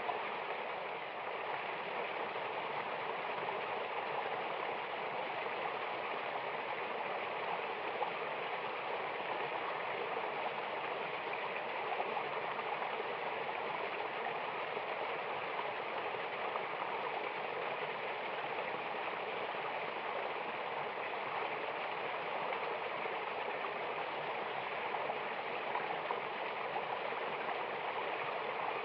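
Mountain waterfall rushing steadily, an even, unbroken splashing hiss of falling and flowing water.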